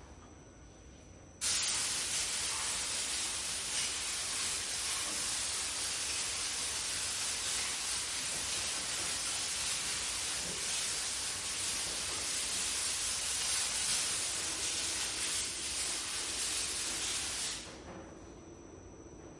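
A loud, steady hiss, like air or spray under pressure, starts suddenly about a second and a half in and cuts off near the end.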